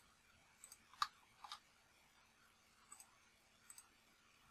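Faint computer mouse clicks over near silence: about five separate clicks, some in quick pairs, the loudest about a second in.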